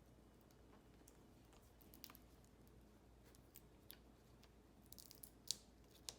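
Quiet, sparse small clicks and ticks of fingers handling a laptop's display cable connector and the back of a replacement LCD panel, with a short cluster about five seconds in.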